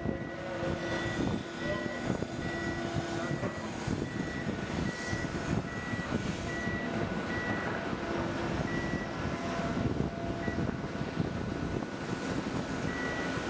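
Heavy port machinery running with a low steady rumble as a large material handler swings its clamshell grab. A high electronic warning beeper sounds about one and a half times a second, stops about ten seconds in, and starts again near the end.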